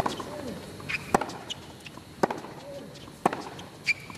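Tennis rally on a hard court: sharp pops of the racket strings meeting the ball and of the ball bouncing, about one a second, with short squeaks of tennis shoes on the court.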